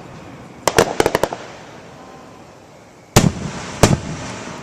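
Fireworks bursting: a quick string of five or six sharp bangs about a second in, then two loud booms near the end, each trailing off in an echo.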